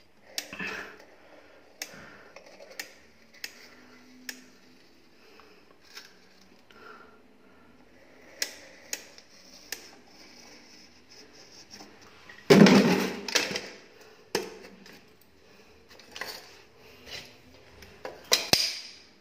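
Manual caulking gun clicking and knocking on and off while silicone sealant is run along a glass shower panel's edge. There is a louder clatter about twelve and a half seconds in and another near the end.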